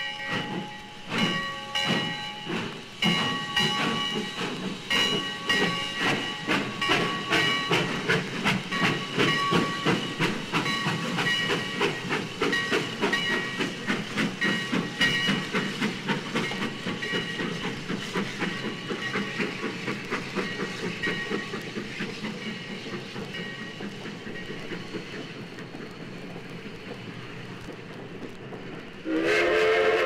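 Steam locomotive working, its exhaust chuffs coming faster and faster and then fading away over the last ten seconds or so. High ringing tones sound over the first few seconds, and a loud steam whistle blows near the end.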